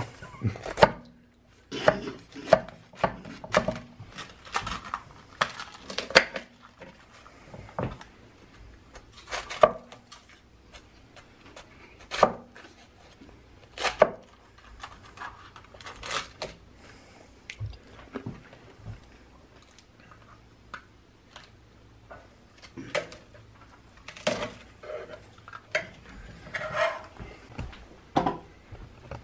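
Chef's knife cutting through a layered tortilla wrap, the blade knocking on a marble cutting board in irregular sharp strikes. The strikes come thick in the first several seconds, thin out in the middle and bunch together again near the end.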